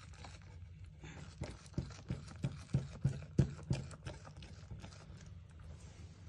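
Goat kid eating fresh grass from a wooden crate. A run of about eight sharp clicks comes at about three a second, then fainter rustling.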